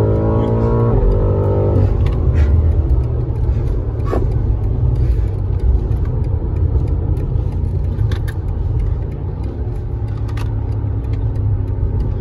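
Car engine and road noise heard from inside the cabin during a track lap. The engine pulls with rising pitch for about two seconds, then eases off to a steady low rumble with a few light clicks. A steady engine note returns near the end.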